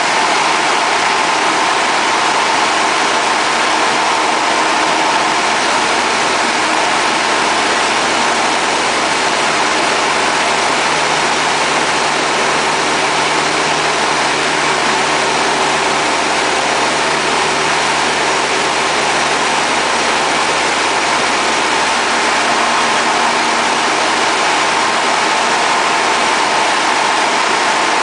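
Light aircraft's engine and propeller running steadily, heard from inside the cockpit, along with the rush of air over the plane.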